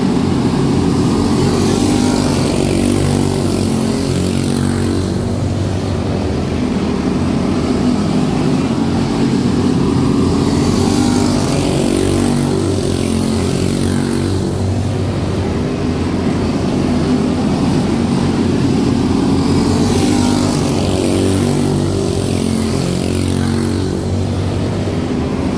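A field of quarter midget race cars with single-cylinder Briggs & Stratton Animal four-stroke engines running flat out around the track: a steady pack of overlapping buzzing engine notes that swells every several seconds as cars pass close by.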